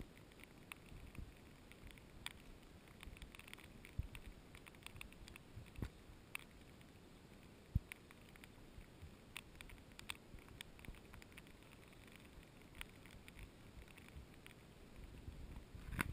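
Light rain pattering, heard as a faint hush with scattered soft ticks of drops, a few of them sharper.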